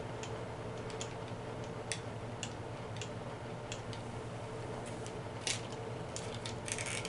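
Scattered light clicks and taps from fingers and nails handling a small cardboard product box and a phone. Near the end comes a louder run of scraping and crinkling as the box flap is worked open.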